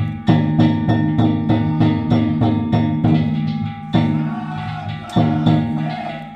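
Danjiri festival music: drums and small hand gongs struck in a quick, steady rhythm of about three strokes a second, the gongs ringing on between strokes. The beat breaks off briefly near the middle, then picks up again.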